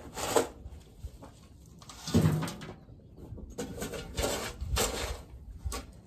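Metal shovel scraping and scooping old straw bedding and manure off a dirt stall floor: a series of separate scrapes with short pauses between them, the loudest about two seconds in.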